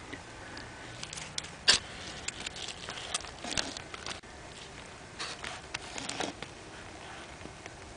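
Scattered rustling and short clicks of close handling and movement over dirt, dead leaves and glass shards, with one sharp click about two seconds in.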